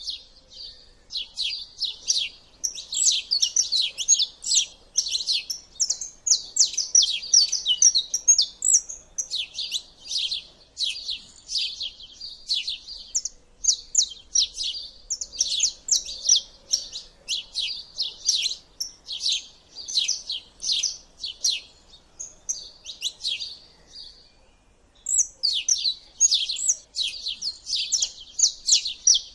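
Small songbirds twittering, a dense run of quick high chirps and trills that barely lets up, with a brief lull about three-quarters of the way through.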